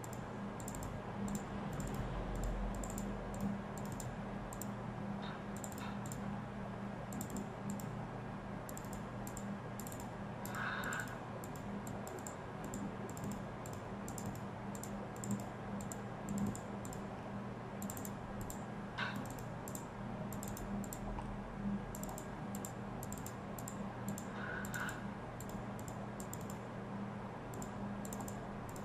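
Computer keyboard typing and clicking in short runs of keystrokes, over a steady low hum.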